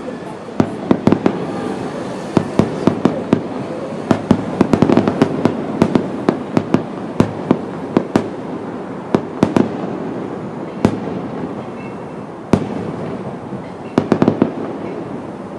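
Aerial firework shells bursting: many sharp bangs in quick succession over a steady background din. The bangs thin out after about ten seconds, with a last quick cluster near the end.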